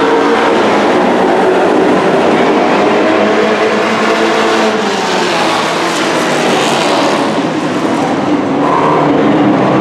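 Engines of several dirt-track race trucks running hard around the oval, their pitch rising and falling as they power through the turns and pass.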